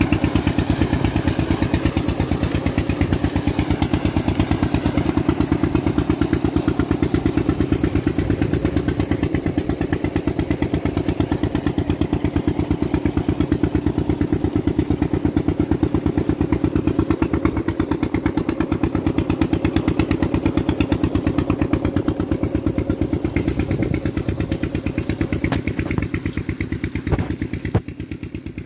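Diesel engine driving a tubewell pump, running steadily with a fast, even beat of firing strokes.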